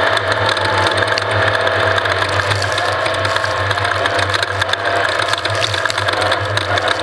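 Off-road race vehicle's engine running steadily, with constant fast rattling and clattering over it.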